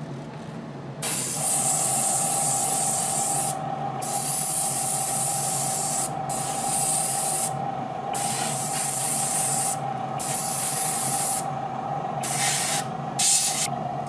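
Red paint sprayed onto a die-cast model part: a loud hiss in about seven bursts of one to three seconds with short pauses between them, over a steady whistling tone that starts with the first burst and stops near the end.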